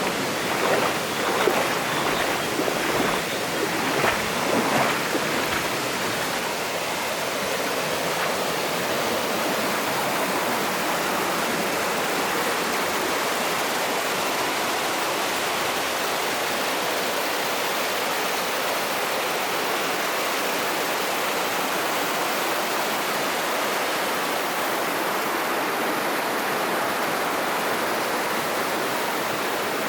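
Mountain stream rushing over rocks in a steady wash of water. In the first few seconds there are a few louder splashes in the shallow water.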